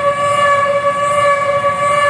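The Gaok siren, an old air-raid siren, sounding a loud, steady held wail with only a slight waver in pitch. It is sounded to mark Indonesian Independence Day.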